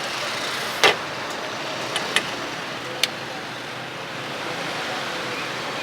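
Steady street noise with passing traffic, broken by a few short sharp knocks or clicks, the loudest about a second in.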